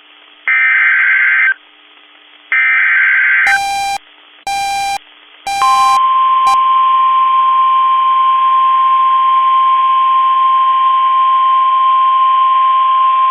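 NOAA Weather Radio Emergency Alert System alert: two screeching SAME digital header bursts about a second apart, then three short electronic beeps. These are followed by the steady 1050 Hz warning alarm tone, which begins a little over five seconds in and holds.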